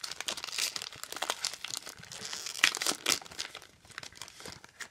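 Foil wrapper of a Pokémon trading card booster pack crinkling and crackling in the hands as it is torn open, with the sharpest crackles in the middle and dying away near the end.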